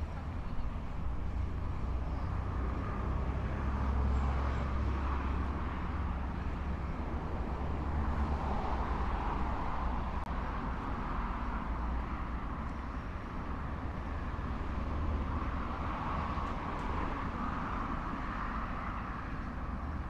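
Street traffic on a city avenue: a steady low rumble of engines and tyre noise that swells and eases several times as vehicles pass.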